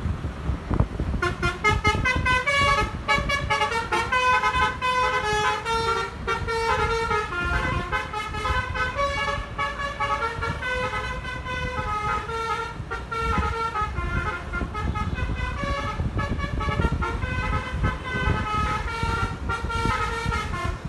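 Bus basuri telolet horn, a multi-trumpet musical air horn, playing a long, fast melody of short notes that starts about a second in, over a steady low background noise.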